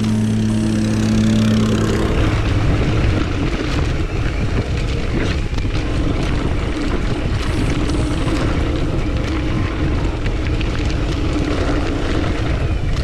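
Mountain bike riding down a rough trail: steady wind rush on the microphone and continuous rattling over bumps. A steady low hum fades out about two seconds in.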